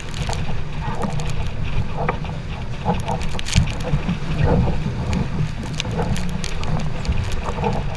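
Heavy wind buffeting the microphone aboard a sailboat under way, a steady low rumble, with scattered short knocks and clicks.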